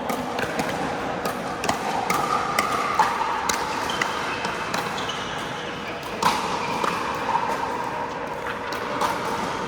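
Pickleball paddles striking the hard plastic ball: sharp, irregular pocks, the loudest about three seconds and six seconds in, echoing in an indoor court.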